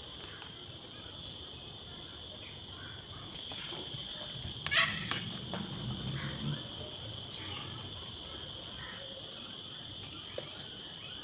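Crickets chirring in a steady high drone, with one sharp knock about five seconds in.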